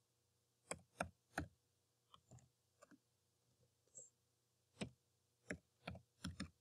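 Computer keyboard being typed on slowly: about a dozen separate keystrokes at uneven spacing, with gaps of up to a second between them.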